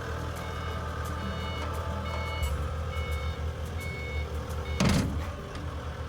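2016 CAT 232D skid steer's diesel engine running while its backup alarm beeps steadily as it reverses. A loud short knock or clatter comes about five seconds in.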